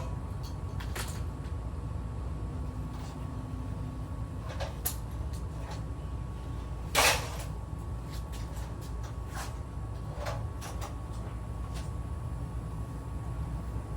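Scattered light knocks and clicks of hand repair work on lattice skirting, with one louder knock about halfway through, over a steady low hum.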